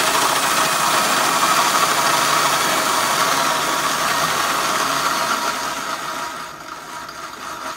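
DeWalt cordless drill with a half-inch bit drilling out a bolt hole in a metal winch fairlead mount. It runs steadily, then weakens over the last second or two as its lithium battery runs flat.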